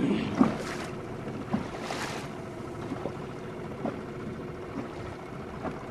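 Boat engine running steadily at low trolling speed, with water and wind noise around it and a few small knocks on the boat, the sharpest about half a second in.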